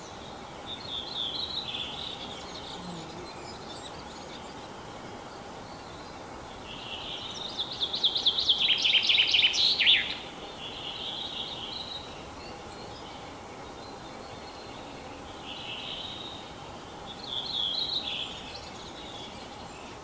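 Male common chaffinch singing its spring song. Midway comes one loud song of about three seconds: a fast run of repeated notes falling in pitch, ending in a brief flourish. Fainter, shorter bird phrases come before and after, over a faint steady hum.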